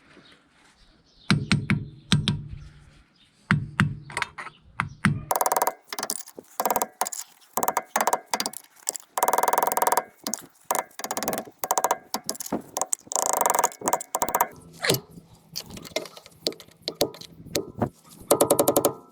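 Irregular metal knocks and clinks as a new grease cap is worked onto the front wheel hub, sparse at first and then coming thick and fast, some of them ringing briefly.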